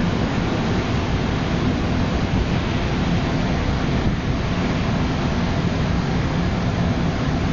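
Steady rushing wind noise over a low engine hum, as from a vessel under way, holding level without change.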